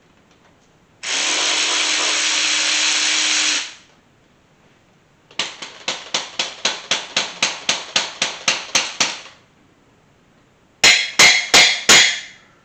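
Power tool working loose the oil pan bolts on a truck engine: one steady run of about two and a half seconds, then a string of sharp pulses about four a second lasting about four seconds, then four quick loud bursts near the end.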